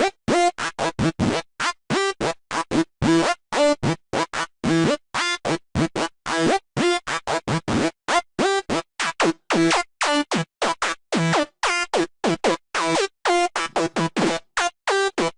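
Sylenth1 software-synth psytrance night full-on lead playing a fast, evenly spaced run of short staccato notes, about four a second. Each note starts with a quick downward dip in pitch.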